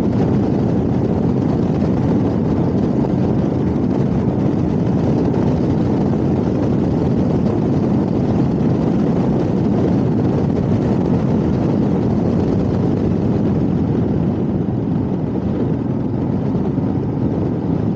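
Motorcycle running with a steady, loud rushing noise of wind and engine on the bike-mounted microphone.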